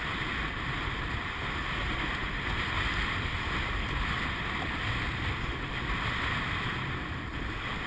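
Steady rush of wind on the microphone and water along the hull of a surf boat under oars, with no distinct stroke sounds standing out.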